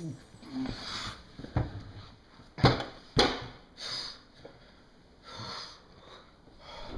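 A few quiet sniffs and breathy noises, with two sharp knocks close together about three seconds in.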